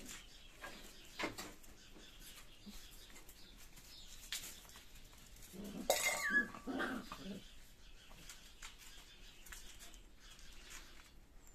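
A puppy gives a short burst of yelping barks about six seconds in, the loudest sound, amid scattered light knocks.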